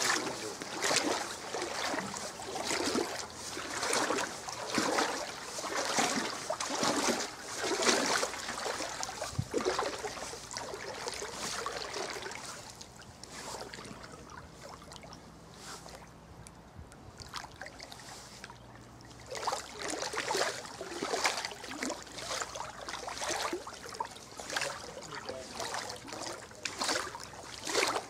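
Legs in waders wading through floodwater: a swish and slosh of water with each step, about one a second. The steps pause for several seconds partway through, then start again.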